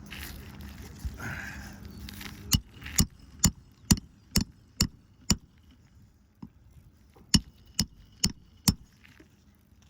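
Hand hammer driving roofing nails into a shingle. Seven sharp strikes come about two a second, then after a short pause four more. Before them there is low rustling from handling.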